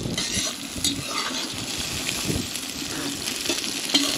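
Sliced onions sizzling as they fry in oil in a cast-iron kazan, stirred with a metal skimmer that scrapes and clinks against the pot.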